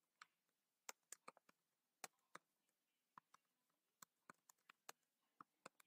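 Faint computer-keyboard typing: a run of short, irregular keystroke clicks as a sentence is typed.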